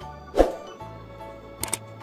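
Background music of steady held tones, with a single sharp thump about half a second in and a few quick clicks near the end.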